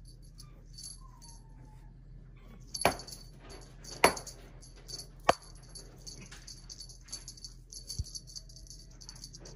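Feather wand cat toy being played with: light, patchy jingling and three sharp taps about a second apart in the middle.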